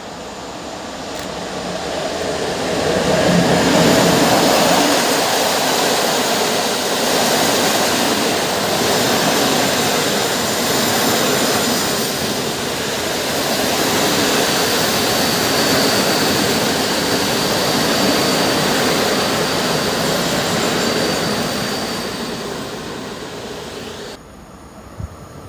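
An EP09 electric locomotive hauling a long InterCity passenger train past the platform: steady wheel-and-rail noise that swells over the first few seconds and holds for about twenty seconds before fading. A faint high, steady whine runs through the later part of the pass.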